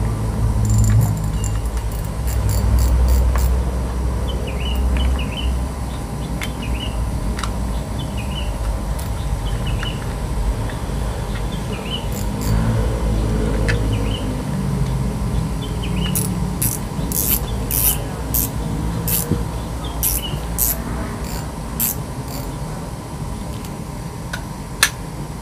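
Okuma Azores XP spinning reel handled as its spool is fitted back on and the bail worked, with a quick run of sharp clicks a little past the middle. A steady hum and low rumble run underneath.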